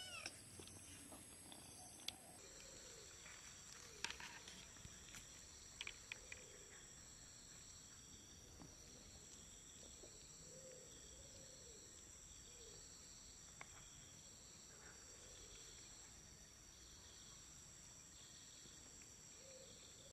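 Faint, steady high-pitched chirring of insects in the grass, several tones at once, one of them pulsing about once a second, with a few soft clicks about four to six seconds in.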